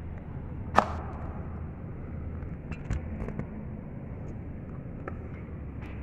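Crompton Greaves Three Star 48-inch ceiling fan running: a steady low hum with an airy whoosh. There is a sharp click about a second in and a few fainter clicks later.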